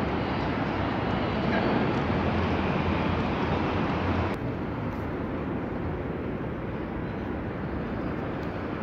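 Steady rumble of outdoor city noise, traffic-like, with no distinct events. About four seconds in the sound turns duller as the higher part drops away.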